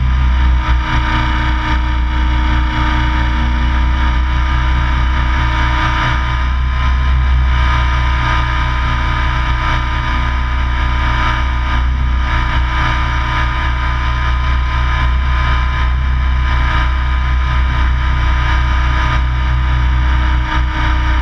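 Radio-controlled helicopter's motor and rotor running steadily in flight, heard from the camera mounted on it: a steady whine over a low drone.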